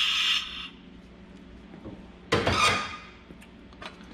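Soldering torch flame hissing, then cut off about half a second in as the heat is taken off the work. A second brief rushing burst follows a little over two seconds in, then a few faint clicks.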